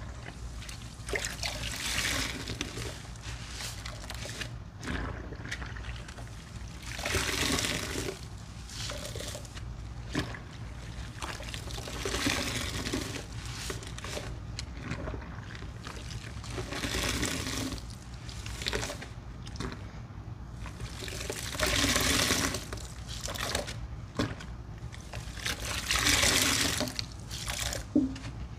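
Sponges soaked in a sudsy mix of Pine-Sol, Murphy's Oil Soap, grated Irish Spring soap and baking soda being squeezed, soapy liquid streaming and trickling out. Six squeezes come about every four to five seconds.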